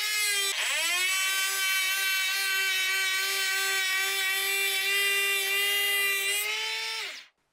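Bosch GHO 12V-20 cordless brushless electric planer running with a steady high whine, its pitch dipping briefly about half a second in, planing wood with no dust extractor attached. It winds down and stops a little after seven seconds in.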